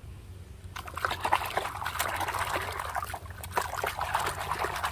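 Water splashing and sloshing in a plastic basin as a small plastic toy car is swished and scrubbed by hand under the water, starting about a second in.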